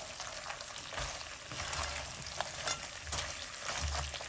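Crayfish and sauce sizzling in hot oil in a pan as they are stir-fried, with a spatula scraping and clicking through the shells.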